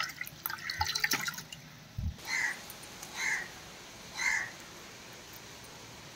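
Water splashing as it is poured by hand into a pot of thin tamarind-and-spice curry mixture. After a cut, a crow caws three times, about a second apart.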